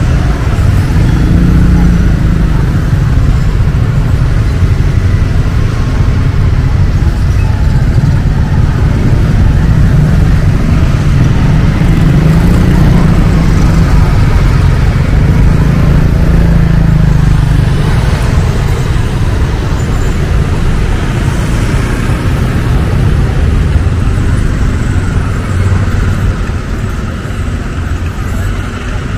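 Steady road-traffic noise along a busy market street: a continuous low rumble of passing vehicles with a haze of street noise over it.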